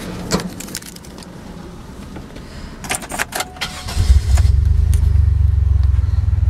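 Keys jangling as the key goes into the ignition, then about four seconds in the 2005 Chevy Monte Carlo's 3.8 V6 starts and settles into a steady low idle, heard from inside the cabin.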